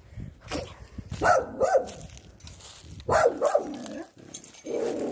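A single dog barking in about four short bouts, a second or more apart.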